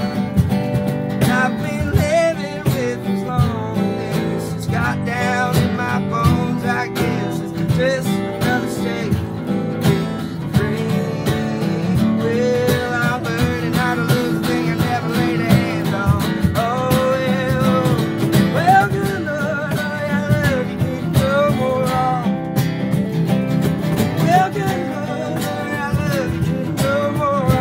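Live country music on two acoustic guitars, strummed chords throughout, with a wavering melody line over them.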